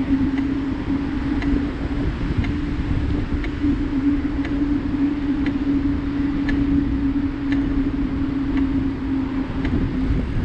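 Riding along a paved path, heard from the rider's action camera: wind rumble on the microphone, a steady low hum, and a light tick about once a second.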